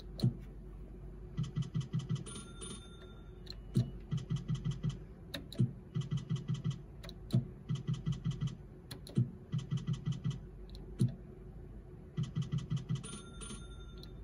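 Video slot machine spinning round after round: each round is a sharp click followed by a quick run of electronic ticks as the reels spin and stop, repeating every couple of seconds. A short beep sounds twice.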